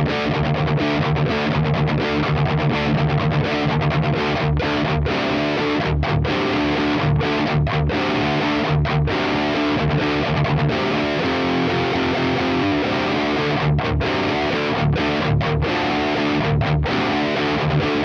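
Parker Fly Deluxe electric guitar with stock DiMarzio pickups played through a Diezel VH4 amp and a Mesa Boogie 4x12 cabinet with Celestion Vintage 30 speakers: distorted rock riffing. The riffs are broken by several short, sudden stops.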